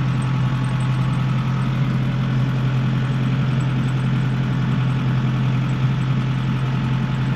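Tractor engine running at a steady pitch, a constant low drone, while its front loader bucket is used to clear snow from the road.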